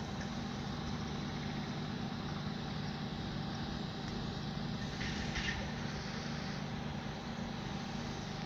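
Steady low rumble of an idling engine, with a constant faint whine over it.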